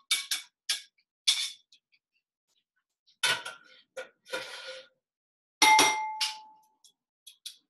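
Metal utensils knocking and clinking against a metal pan: a handful of quick knocks as food is scraped out of a skillet, then tongs tapping in a pan. The loudest, a metallic clang about six seconds in, rings on for about a second.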